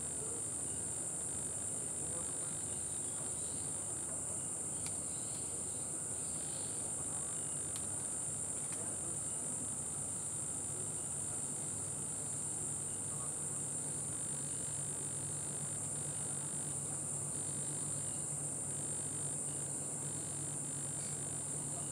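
A steady, high-pitched, unbroken chorus of night insects trilling in the trees, with a few faint clicks partway through.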